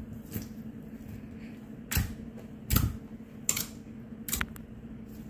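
Clear Elmer's glue slime pressed and poked with fingertips, giving about five separate sharp clicks and pops, spaced irregularly.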